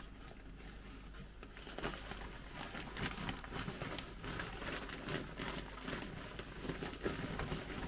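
Fine sand being smoothed by hand and poured from a crinkling plastic bag, with irregular soft rustling and patter that gets busier about two seconds in.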